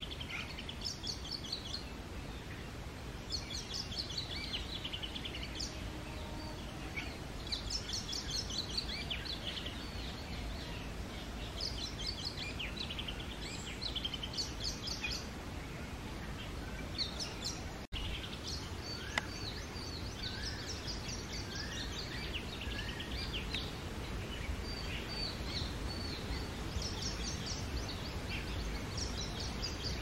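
Male Oriental magpie-robin singing: phrases of quick, varied high whistled notes, repeated again and again with short pauses between them. Under it runs a steady low background rumble.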